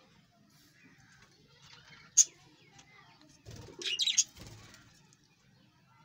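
Budgerigars chirping and chattering. There is one sharp, loud chirp a little after two seconds in, and a louder flurry of chirps around four seconds, with a couple of low thumps at its start and end.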